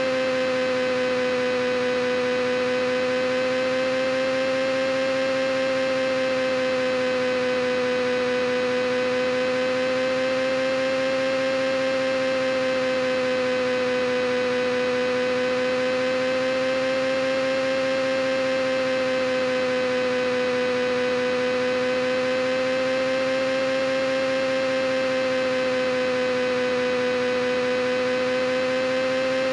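A steady droning hum with one strong pitch and a weaker, lower one beneath it, wavering slowly up and down in pitch.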